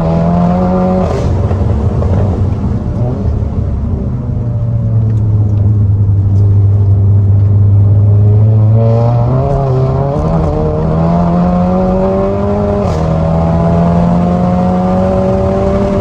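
Seat Cupra's turbocharged four-cylinder engine, tuned with a downpipe and resonator delete, pulling on the road. Its note drops at a gear change about a second in and stays low and steady for several seconds. It then climbs, drops at another shift a few seconds before the end, and climbs again.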